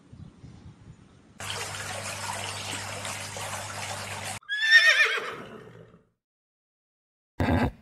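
A horse whinnying: one loud, quavering call that falls in pitch, preceded by a few seconds of steady hiss with a low hum. A short, sudden burst of another clip comes just at the end.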